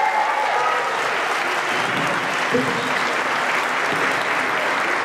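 Audience applauding steadily at the close of a mariachi piece.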